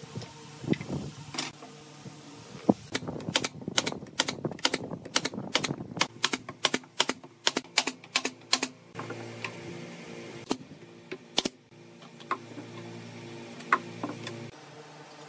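Pneumatic nail gun firing nails into pine slats in quick succession, about three to four sharp shots a second for some six seconds. A steady low hum follows and stops shortly before the end, with a couple more single shots over it.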